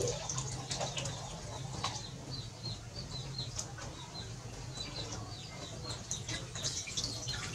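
Water splashing and sloshing in a plastic tub as a macaque dunks its head and paddles about in it, in short irregular splashes. Short high bird chirps repeat throughout.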